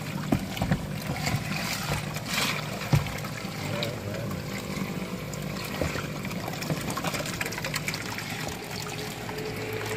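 Water splashing and sloshing as hands rummage through a tub of water among plastic bottles, with a few sharp knocks in the first few seconds. A steady low hum runs underneath.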